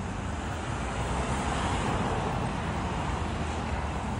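Steady road traffic noise from passing cars, an even rumble with no distinct events.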